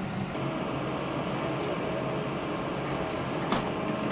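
Hydraulic excavator's diesel engine running steadily, with a single sharp knock near the end.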